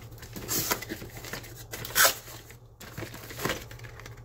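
Cardboard box flaps being pulled open and the packaging inside rustled and handled, in a few short crinkling bursts, the loudest about two seconds in.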